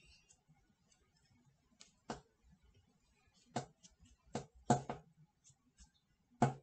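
A handful of short, soft taps and brushes from hands striking the chest and rubbing the shirt while signing, about five in all, spaced irregularly.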